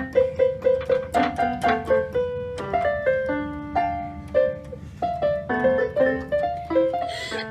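Electronic keyboard played by hand, a melody of struck notes coming several times a second.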